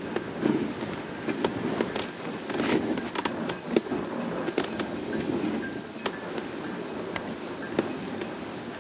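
A sled dog team running on a snow trail, heard from the moving sled: a steady rushing rumble of the sled over the snow, with frequent sharp clinks and jingles from the dogs' harness and gangline hardware.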